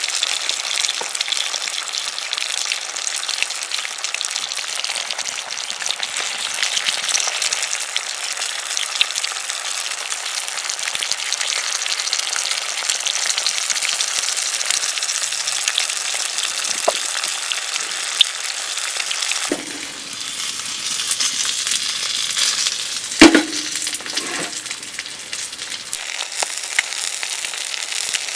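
Food sizzling and frying in a hot pan, a steady hiss with fine crackles. A single sharp knock comes near the end.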